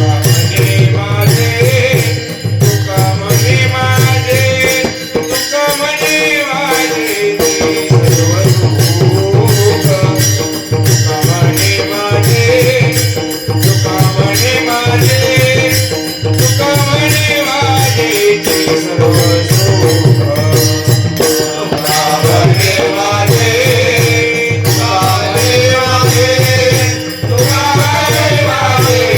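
A man sings a traditional varkari devotional melody with wavering, ornamented phrases, accompanied by steady, dense pakhawaj (mridang) drumming with a strong bass stroke.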